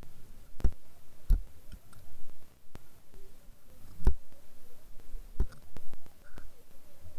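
Irregular sharp clicks and knocks, about six of them spaced unevenly, heard through an underwater camera housing over a faint steady hum.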